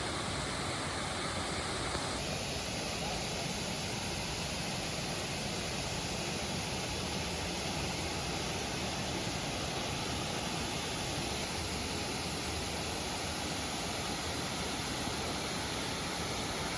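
Steady rush of water pouring over a stone dam, an even noise with no pauses.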